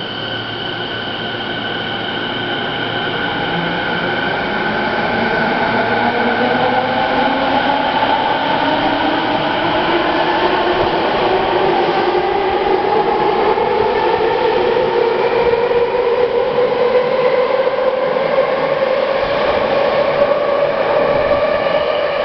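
Electric commuter train pulling out of an underground station platform: its traction motors give a steadily rising whine as it accelerates, growing louder over a background of wheel and running noise.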